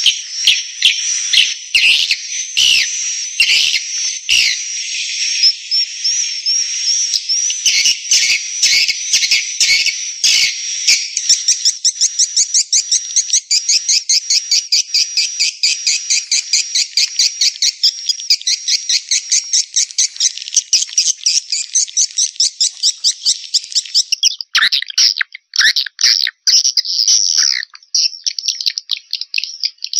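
Swiftlet lure call: edible-nest swiftlets twittering in high chirps, the call played to draw swiftlets into a nest house. Sharp clicks cut through in the first ten seconds. From about eleven seconds a fast, regular chirping of about five a second takes over, and near the end it breaks into sparser chirps.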